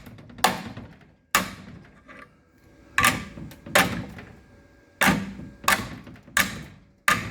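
Hammer and dolly beating the steel of an FJ Holden's front cross member: about eight sharp metal blows at uneven spacing, each ringing briefly.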